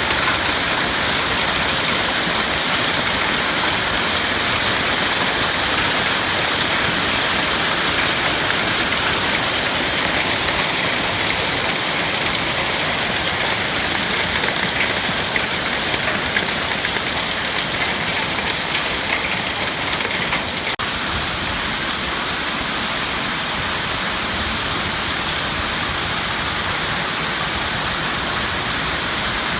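Hail and heavy rain falling, a dense, steady hiss of countless small impacts, a little quieter after a brief dip about two-thirds of the way through.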